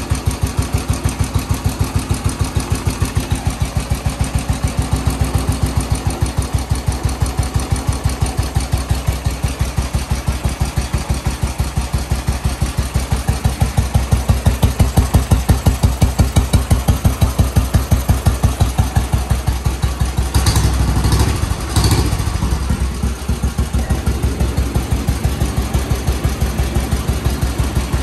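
A 1961 Royal Enfield Bullet 350's single-cylinder four-stroke engine idling slowly with an even, regular beat, its idle turned down at the idle screw of the freshly restored AMAL 375 Monobloc carburettor. Two brief louder bursts of noise come about two-thirds of the way in.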